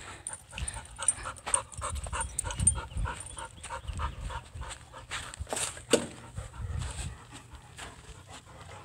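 A dog panting hard in quick, even breaths, about three or four a second, with one sharper, louder huff about six seconds in.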